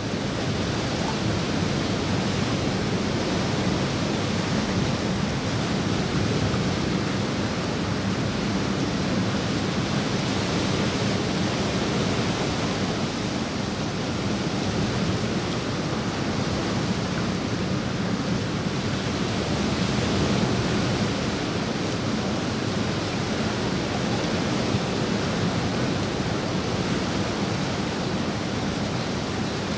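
Steady rain falling on the water of a swimming pool, an even hiss without pause.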